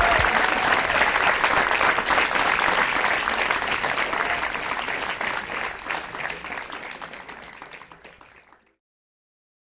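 Theatre audience applauding at the end of a stand-up set, the clapping thinning and dying down before it cuts off about eight and a half seconds in.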